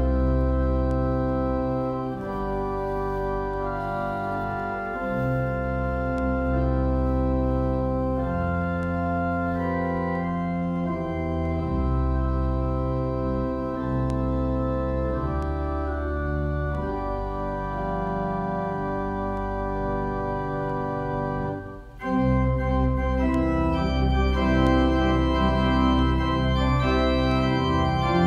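Organ playing slow, sustained chords over a deep bass line. Late on it breaks off for a moment, then comes back louder.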